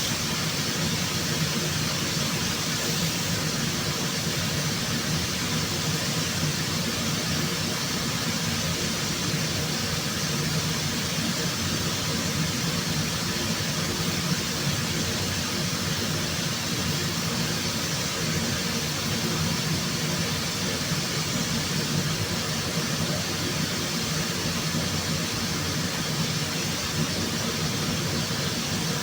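Steady machinery noise in a workshop: a constant low hum with hiss over it, running without a break.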